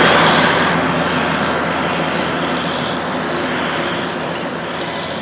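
A truck passing close by and then moving away, its engine and road noise fading steadily, with wind buffeting the microphone.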